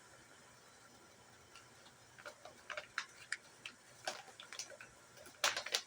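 Irregular light clicks and taps, starting about two seconds in and growing busier, with a louder cluster of clicks near the end.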